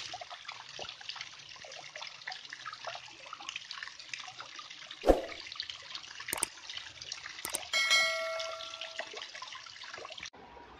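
Water falling and splashing over rocks, a steady hiss that stops abruptly near the end. About halfway there is a loud thump, then two sharp clicks and a brief ringing chime.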